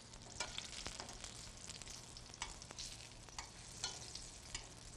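Eggplant frying: a quiet, steady sizzle with frequent sharp crackles and pops.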